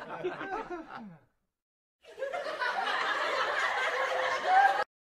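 People laughing, cut off abruptly about a second in. The laughter resumes after a brief silence and breaks off sharply again near the end.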